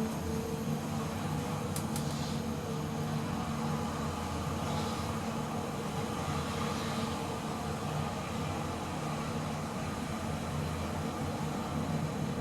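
Glass KONE EcoDisc lift car travelling down, with a steady, even hum of drive and ride noise.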